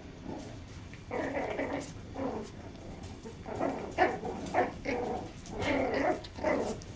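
Puppies growling and yipping in a string of short bursts as they play tug-of-war over a toy: play growls, not a real fight.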